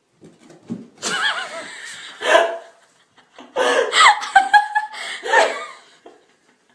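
A domestic cat yowling in a series of about four loud, wavering calls, some sliding down in pitch and then holding a steady note.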